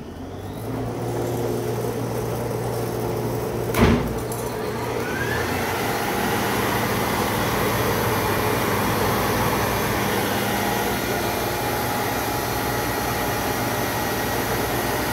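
A dust collector starts up and settles into a steady hum. About four seconds in there is a sharp clunk, then the 1960 Bauerle DM71 planer's 6.5-horsepower motor and Hermance helical cutterhead spin up with a rising whine and run steadily alongside it.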